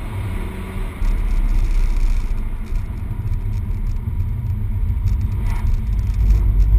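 Peugeot 208 GTI heard from inside the cabin at speed on a wet track: a steady deep rumble of road, tyres and engine, which grows louder about a second in.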